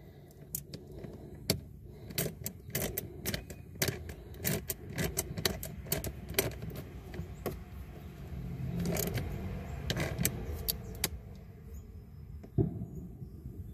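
Small metal parts clicking and tapping: terminal bolts, nuts and clips being handled on a scooter battery's terminals, in a quick irregular run of light clicks. A low rumble swells and fades in the second half, and one louder bang comes near the end.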